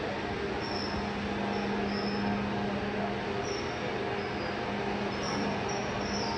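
Agitator drive running a multi-stage shaft of three-bladed, wide-bladed axial flow turbine impellers in air during a no-load trial: a steady mechanical hum with a low tone. Short high-pitched squeaks come and go throughout.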